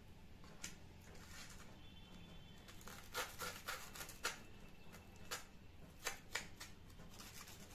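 Sharp knife sawing back and forth through a butter-toasted grilled sandwich, the crisp crust crunching and scraping in a string of short crackles, loudest about three to four seconds in and again just after six. The blade is rubbed through rather than pressed, and the noise comes from the toast being very crunchy.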